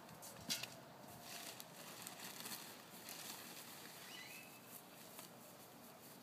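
A small object dropped into a galvanized metal bucket: one sharp tap about half a second in, over a quiet background with faint light ticks and a brief high chirp.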